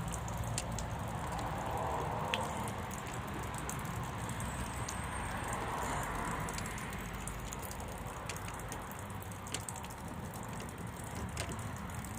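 Scattered light metallic clicks and scrapes of water pump pliers gripping and turning the parts of a tap, over a steady low background rumble.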